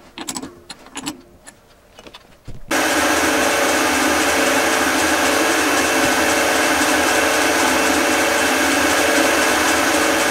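A few light clicks and knocks, then about two and a half seconds in a Wabeco D6000 metal lathe comes in abruptly with a loud, steady run and a steady hum of tones, turning a metal bar with an insert tool on its freshly repaired spindle during a test cut.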